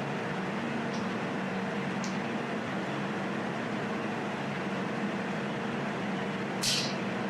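Steady machine hum of a 200-watt fiber laser jewelry welder starting up, its cooling fan and water circulation running. A faint tick comes about one and two seconds in, and a short sharp hiss near the end.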